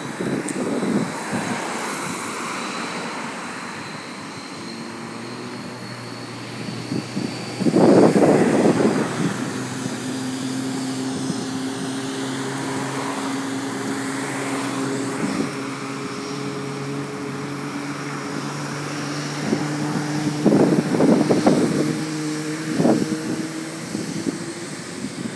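Jet airliner engines running at an airport apron: a steady hum with a faint high whine. Louder rushing bursts come about eight seconds in and again near the end.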